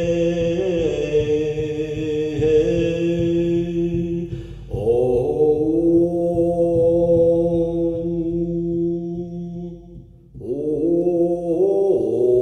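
A man chanting in long held notes, three phrases with a breath between each, over steady low beats of a large hand-held frame drum struck with a fur-wrapped beater. The drum's head is loose in the damp.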